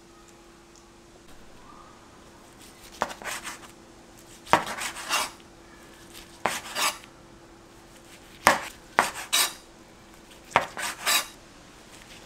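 A kitchen knife slicing gimbap rolls on a cutting board: about six cuts from about three seconds in, each a sharp knock of the blade on the board followed by a short rasp as it goes through the seaweed-wrapped roll.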